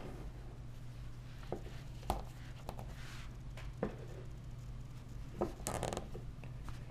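Gloved hands handling a small vinyl toy figure on a desk: a few light, separate taps and clicks as it is picked up, turned and set down, and a short crackly rub about two-thirds of the way through, over a steady low hum.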